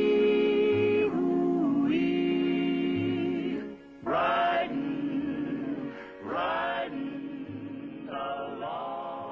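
Outro background music: long held pitched chords with a low pulse about once a second, growing quieter toward the end as it fades out.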